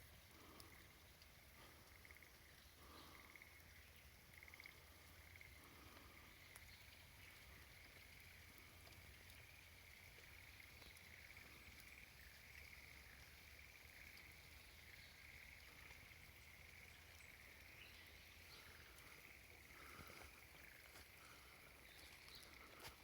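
Near silence, with a faint steady chorus of calling night creatures: one high, pulsing trill throughout, plus a few faint clicks.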